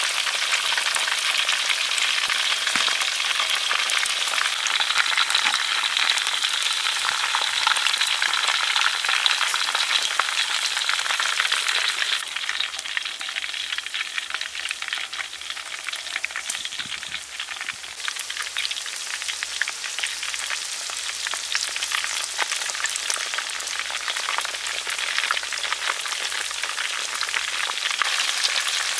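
Food deep-frying in a pan of hot oil: a continuous crackling sizzle made of many fine pops, a little quieter from about twelve seconds in.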